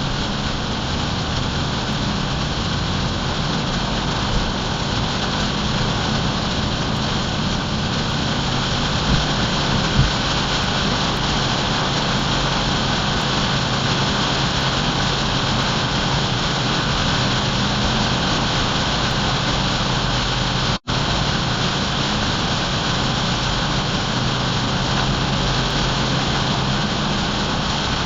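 Car driving in rain: a steady hiss of rain and wet road over a low, even engine hum. The sound drops out for an instant about 21 seconds in.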